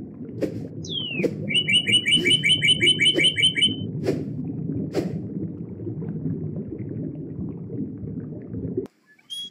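Birdsong sound effect: a falling whistle about a second in, then a fast run of chirps, about eight a second, for some two seconds, with a few sharp clicks. Under it runs a steady low rumble that stops suddenly near the end.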